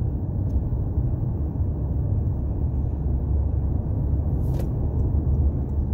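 Steady low rumble of a car driving at speed on the highway, heard from inside the cabin: engine and tyre noise.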